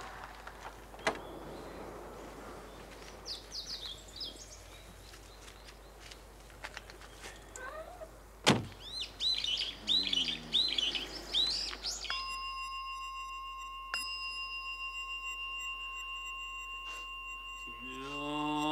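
Birds chirping outdoors with a sharp knock about eight and a half seconds in. Then a Buddhist altar bell is struck and rings on in a long steady tone, struck again twice, and a priest's low sutra chant begins near the end.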